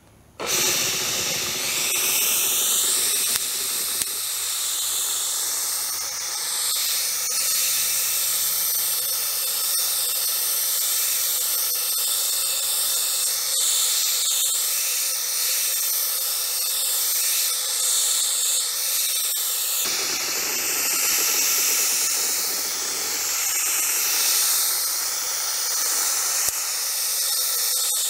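Powder coating spray gun blowing a steady hiss of compressed air and powder, starting about half a second in.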